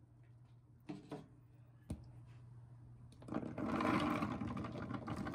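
Drained chickpeas poured from a bowl into a plastic Blendtec blender jar, tumbling in with a dense rattle for about two and a half seconds from past the halfway point. A few light knocks come before it, over a low steady hum.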